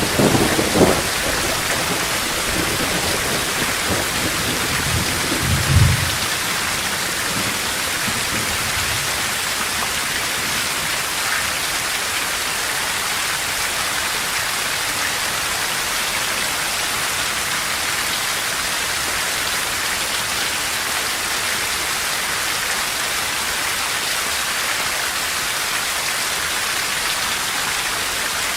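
Heavy rain pouring steadily in a thunderstorm. Thunder rumbles through the first few seconds, loudest about six seconds in, then stops abruptly, leaving only the rain.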